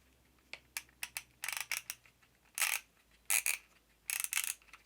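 Thumbwheel film advance of a disposable film camera being wound with the thumb: a few single clicks, then several short bursts of rapid ratcheting clicks as the wheel is turned in strokes.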